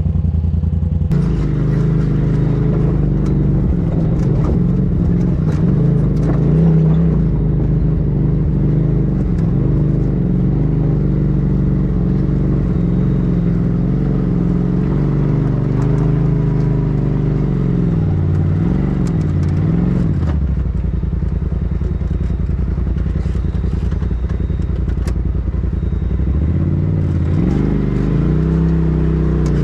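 Polaris RZR side-by-side engine running at low trail speed, heard from inside the open cab, with the engine note dropping and picking back up twice as the throttle eases off and comes back on. Light clicks and rattles from the machine crawling over the rocky dirt track.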